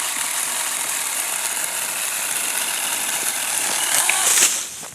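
Saker 4-inch cordless electric mini chainsaw running and cutting through a tree limb. It is briefly louder about four seconds in, then stops just before the end as the cut finishes.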